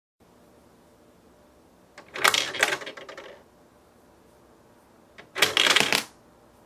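Hello Kitty toy refrigerator's door dispenser dropping small plastic drink cans into its slot twice, about three seconds apart: each a clattering plastic rattle lasting about a second.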